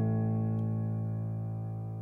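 The song's closing chord ringing on and slowly fading away after the singing has ended.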